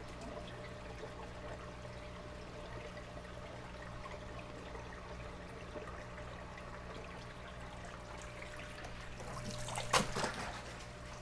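Water trickling and splashing in an aquarium's top filter box as it is worked by hand, over the steady hum of aquarium pumps. A short, louder burst of splashing and knocking comes about ten seconds in.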